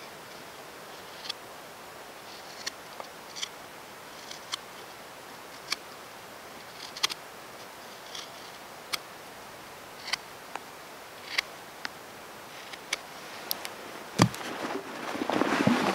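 Knife blade carving a bark-covered stick: short, sharp scraping cuts as shavings come off, roughly one every second. About two seconds before the end a thump, then rustling and handling noise as gear is moved.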